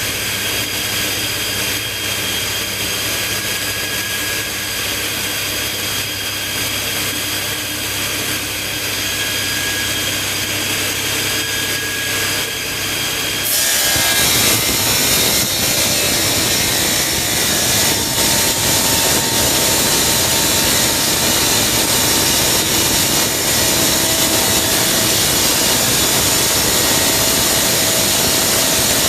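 Electric stone-cutting saw running. Its motor hums steadily with a whine at first; about halfway through, a louder, harsher grinding hiss sets in and stays, as the blade bites into the stone.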